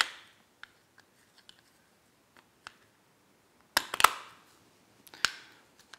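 Plastic case top pieces of a Raspberry Pi Zero case snapping into their grooves: a sharp click right at the start, a cluster of clicks about four seconds in, and another click a little after five seconds, with faint handling taps between.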